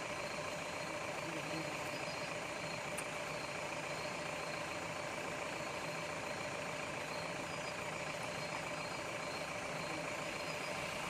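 Engine of a stopped vehicle idling steadily, with a constant even hum and hiss and no change in level.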